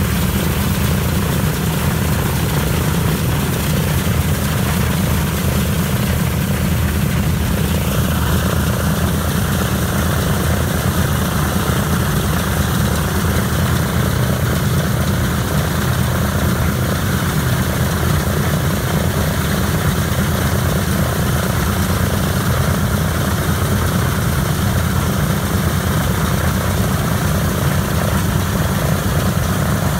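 Douglas C-47's Pratt & Whitney R-1830 radial engine and propeller running steadily in a ground engine run, an even low drone.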